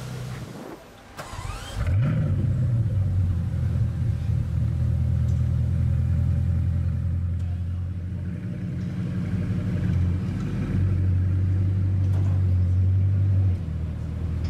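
Bugatti Chiron's quad-turbo W16 engine starting: a brief rising whine, then the engine catches about two seconds in with a quick flare of revs and settles into a steady, deep idle.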